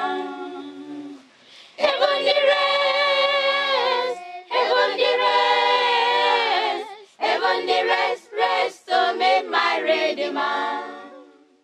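A choir singing a Christian song unaccompanied, in phrases of long held notes broken by short pauses, dying away at the very end.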